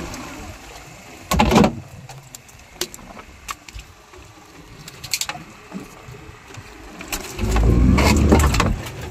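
Knocks and thuds as a hooked eel is hauled aboard a boat and lowered into the fish hold: one loud knock about a second and a half in, scattered light clicks, then a longer stretch of heavy low thumping near the end.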